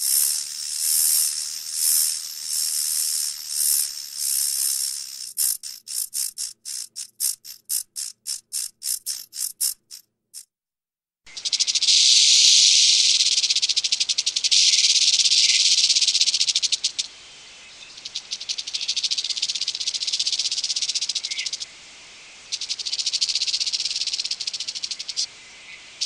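Rattlesnake sounds. For the first few seconds there is a pulsing, hiss-like rattle that breaks up into separate quick clicks and stops about ten seconds in. After a short pause a continuous high rattle buzz starts, fades down and comes back several times.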